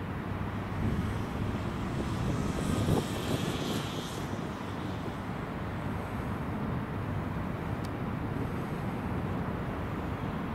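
Road traffic: a steady noise of vehicles passing, with one louder pass and a burst of hiss from about two and a half to four seconds in.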